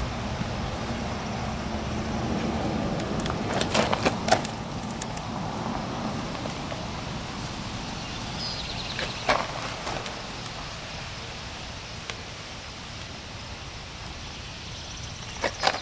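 Paper transfer sheet of a vinyl stripe decal crinkling and crackling as it is handled and peeled along the boat's hull, in a few short bursts: a cluster about four seconds in, one about nine seconds in, and another near the end, over a steady outdoor background hum.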